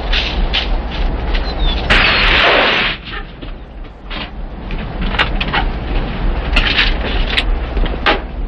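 Irregular crunching and cracking of footsteps running through dry brush, broken about two seconds in by a loud rushing burst of noise lasting about a second, followed by scattered lighter knocks and clicks, all over a steady low hum in the old soundtrack.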